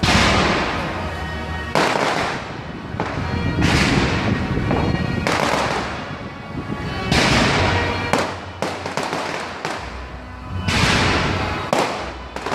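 Display fireworks going off in a series of loud bangs, about one every two seconds, each fading away over a second or more.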